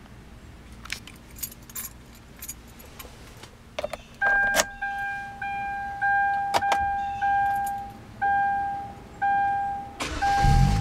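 Keys jangle and click in the ignition of a 2010 Kia Forte Koup SX, then the door-open warning chime sounds about once a second from about four seconds in. Near the end the car's 2.4-litre four-cylinder engine cranks and starts.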